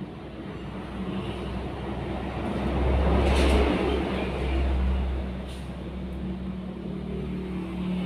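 A motor vehicle going past: a low rumble that swells to its loudest about three and a half seconds in and then fades again.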